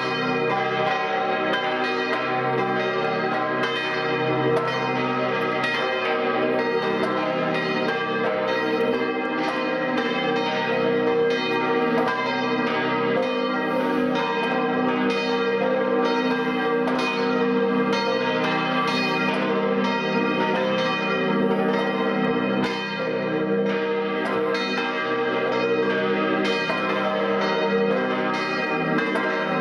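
Several church bells ringing together in a full peal, struck over and over so that their tones overlap and ring on continuously.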